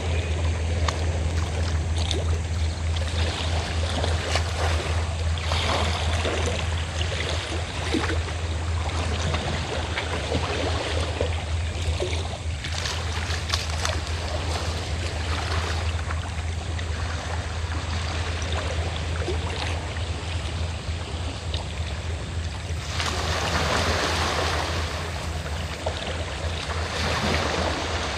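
Sea waves washing against the shore in uneven surges, over the steady low drone of a fishing boat's engine. One wave washes in louder near the end.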